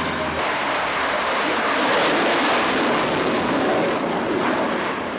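F-16 fighter jet flying a display with its afterburner lit, making a loud rushing jet noise that swells about two seconds in and eases a little near the end. In the first half-second the steady drone of a twin-turboprop's propellers is heard before it cuts off.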